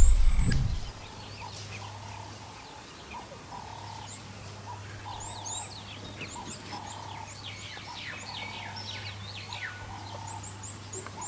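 An African wild dog pack at a kill, giving rapid high-pitched twittering chirps and short squeals over a faint steady hum. A loud low rumble dies away in the first second.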